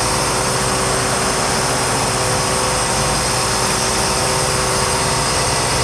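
Flatbed lorry's diesel engine running steadily to drive its truck-mounted hydraulic crane while the crane lifts a load, a steady drone with a faint constant whine.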